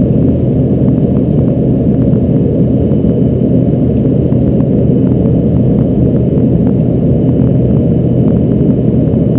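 Steady cabin noise of an Embraer ERJ-145 climbing after takeoff: its rear-mounted Rolls-Royce AE3007 turbofans and the airflow make a loud, low, even drone with a steady hum underneath.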